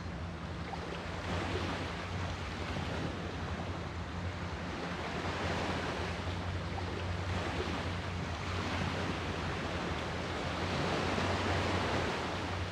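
Ocean surf: waves breaking and washing in, the rush of water swelling and easing several times, over a steady low hum.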